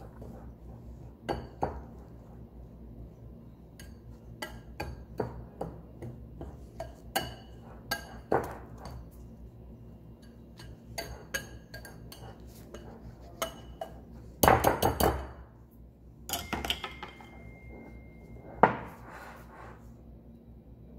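Metal balloon whisk stirring dry flour in a glass bowl, its wires clinking and scraping against the glass in irregular strokes, with a louder cluster of clattering about three-quarters of the way through and one sharp clink shortly after.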